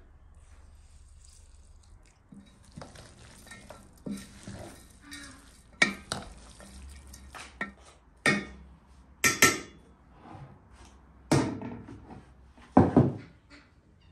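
A metal spoon stirring and tossing salad in an enamel bowl, scraping and clinking against the bowl, with about five sharp, louder clanks of the spoon on the enamel.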